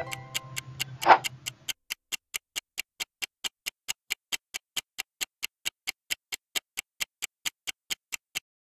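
Clock-style ticking sound effect, even and quick at nearly five ticks a second, stopping just before the end. For the first couple of seconds a background music chord sounds under the ticks, with one short loud tone about a second in, and then the music cuts off.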